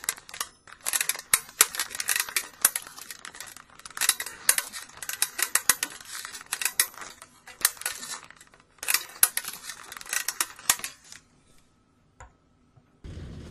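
Cardboard scenery flats being handled and slotted into a paper toy theatre: rustling, scraping and sharp clicks in irregular bursts that stop about eleven seconds in. Near the end a steady low rumble begins.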